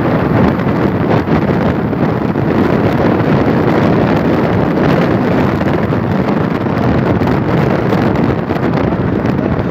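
Car driving along, heard from inside the cabin, with wind buffeting the phone microphone over the steady noise of the moving car.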